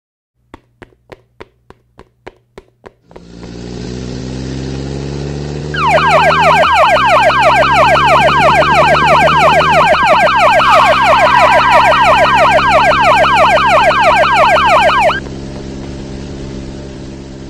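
Police siren sound effect with a fast up-and-down yelp, loud for about nine seconds before cutting off suddenly, over a steady vehicle engine sound that starts about three seconds in and runs on after the siren stops. Before the engine comes in there are about eight quick ticks.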